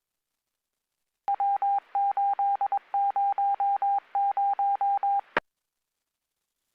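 Police scanner radio channel: a rapid string of short, same-pitch beeps, about five a second in loose groups, over a faint hiss. The transmission starts and ends with a squelch click.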